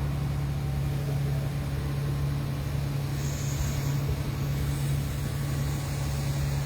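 Boat engine running steadily under way, a loud, even low drone.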